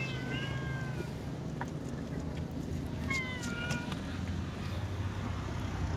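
A cat meowing twice: two calls of about a second each, roughly three seconds apart.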